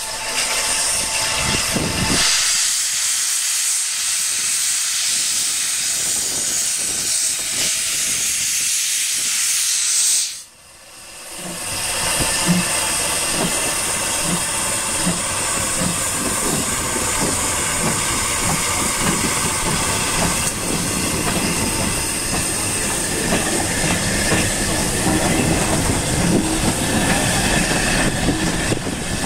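LNER J27 steam locomotive 65894 hissing loudly with escaping steam. After a brief drop-out about ten seconds in, slow regular exhaust chuffs, a little over one a second, come through under the hiss as the engine pulls away.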